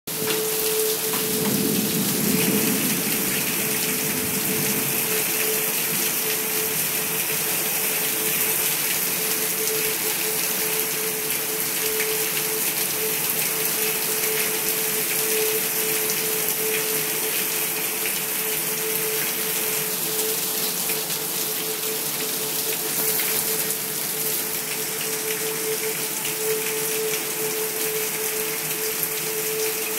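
Heavy rain falling steadily, with a steady humming tone underneath.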